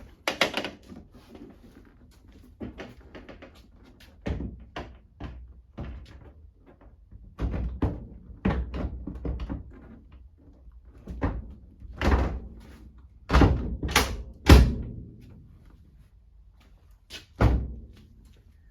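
A run of knocks and clunks from work on a classic Mini's door and hinges, with a few louder thunks in the second half and one more near the end.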